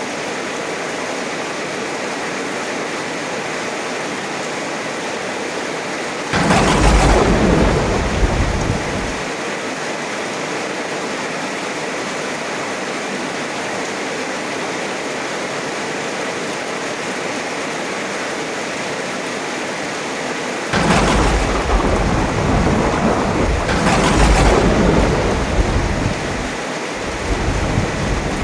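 Heavy rain falling steadily, with rolling thunder: a long rumble about six seconds in, then another long roll with two swells starting a little past twenty seconds, and a weaker rumble near the end.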